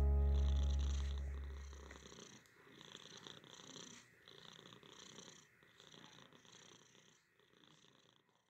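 Domestic cat purring close up, a soft even rasp broken by short pauses about every second and a half as it breathes in and out. Background music fades out over the first two seconds.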